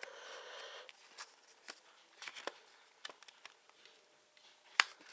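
Blu-ray combo pack's disc packaging handled: soft rustling at first, then scattered light clicks and taps, with one sharper click near the end.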